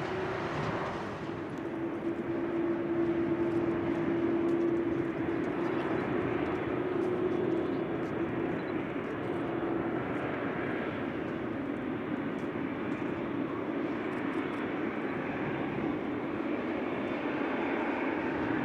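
Jet engines of a Boeing 787-8 airliner running on the runway: a steady roar with a low hum in it, swelling a couple of seconds in and then holding.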